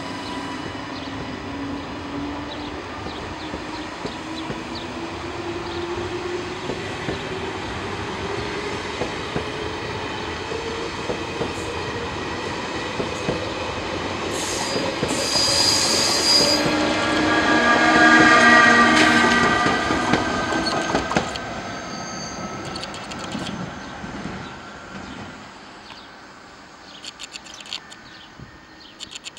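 A TGV Lyria double-deck (Euroduplex) trainset pulling away, its motors whining slowly up in pitch over the running noise of the wheels. Squeals and high tones ring out loudest about halfway through, then the train fades away.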